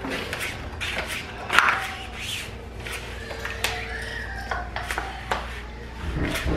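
Playing cards being dealt from a blackjack shoe onto a felt table: a string of light clicks and soft slides at irregular intervals, the sharpest about a second and a half in.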